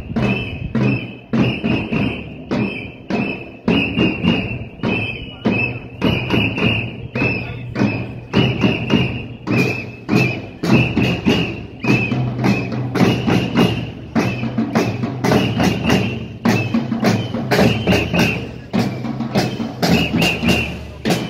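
Marching drums beaten by several people as they walk, in a steady rhythm of a few strikes a second.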